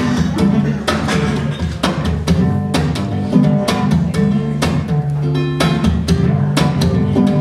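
Acoustic guitar playing a song's instrumental intro over a steady percussive beat.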